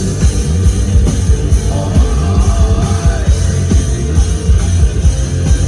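Live rock band playing loud over a big sound system: drums keeping a steady beat under electric guitar and bass, in an instrumental stretch between sung lines.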